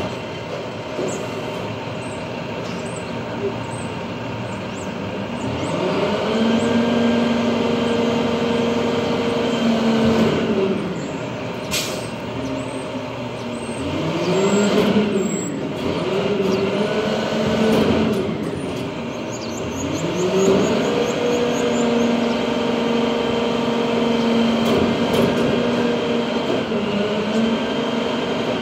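International trash truck with a Heil packer body, its engine revving up, holding at high speed for several seconds, then dropping back to idle. This happens once for a long spell, then twice briefly, then again for a long spell near the end: the engine revving to drive the hydraulic packer through its cycles as trash is loaded. A single sharp knock comes about halfway through.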